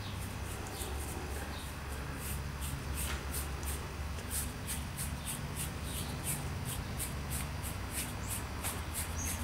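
Paintbrush strokes brushing paint onto a model layout's board, a rhythmic swishing about three strokes a second, over a steady low hum.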